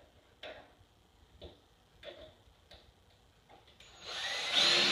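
A few faint, spaced clicks, then about four seconds in a cordless drill starts up and runs steadily, driving a screw into a wooden bed part.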